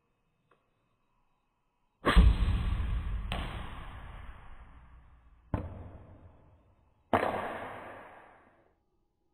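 Gasoline vapour igniting inside a cardboard tube, blowing off its lid: three sudden blasts about two, five and a half and seven seconds in, the first the loudest, each fading away over a second or two.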